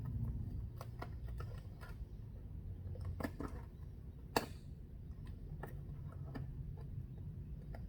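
Scattered light clicks and taps of hands handling packaging and parts, with one sharper click about four and a half seconds in, over a low steady hum.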